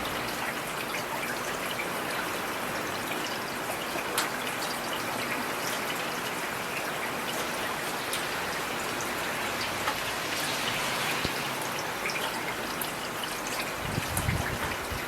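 Heavy rain falling steadily: an even hiss with sharp drop ticks here and there, and a short low thud near the end.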